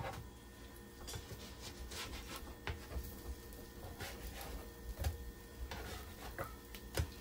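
Silicone spatula scraping and tapping on an electric griddle's cooking plate while pancakes are lifted and turned: a few soft knocks and scrapes.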